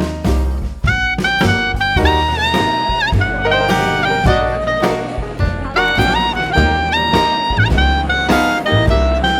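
Upbeat jazz background music: a horn melody of held notes with short pitch bends over bass and drums.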